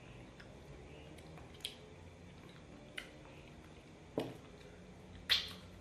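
People eating soft, creamy durian flesh by hand: quiet wet mouth sounds with a few short smacks, the loudest near the end.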